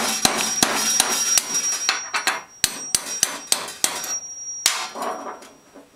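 Hammer tapping repeatedly on a 10 mm socket held over a blower motor's shaft, driving the fan hub down onto the shaft: about three quick blows a second, each with a high metallic ring. The tapping stops about five seconds in.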